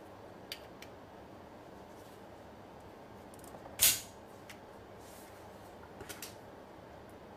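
Sharp metallic clicks of a Walther P22 pistol's parts being worked by hand: two light clicks near the start, one loud click about four seconds in, and a quick cluster of three near the end.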